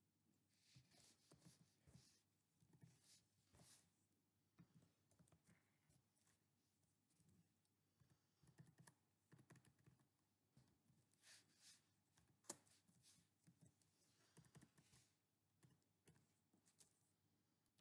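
Faint computer keyboard typing: irregular keystrokes in short runs, with one sharper click about twelve seconds in.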